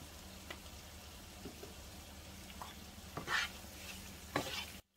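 Onions, tomatoes and peppers sizzling faintly in a frying pan, with a plastic spoon stirring and scraping across the pan twice in the second half. The sound cuts out for a moment just before the end.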